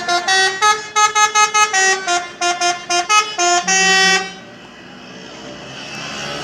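Indonesian bus 'telolet' musical horn playing a fast melody of short notes at changing pitches, ending on a longer held note about four seconds in. After it stops, only a low, even traffic rumble is left.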